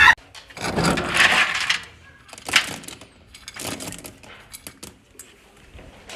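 Dry pet kibble being scooped from a bin with a small cup, rattling and clicking in quick little bursts in the second half. It is preceded by a short noisy sound and one sharp knock in the first three seconds.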